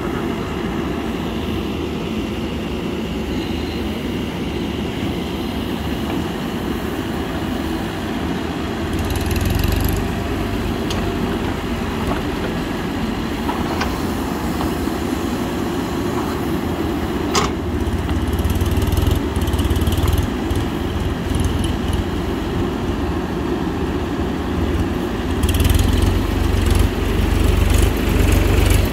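Mahindra SX backhoe loader's diesel engine running steadily, getting heavier and louder in spells, about nine, eighteen and twenty-five seconds in, as the hydraulics work the digging arm. A single sharp knock cuts in about halfway through.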